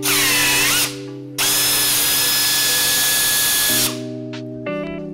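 Pneumatic air drill drilling through a mounting bracket into a carbon-fibre side-skirt panel. It runs in two bursts: a short one in which the pitch sags under load and recovers, then a longer steady run of about two and a half seconds. Background music takes over near the end.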